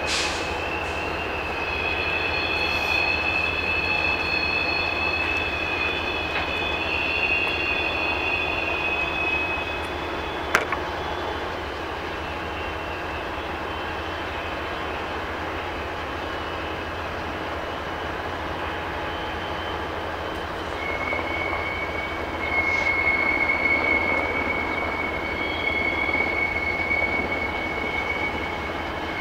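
Freight cars rolling slowly through a rail yard, their wheels squealing in long, high, steady tones: several overlapping squeals over the first third, then one long squeal from about two-thirds of the way through. A single sharp click about ten seconds in.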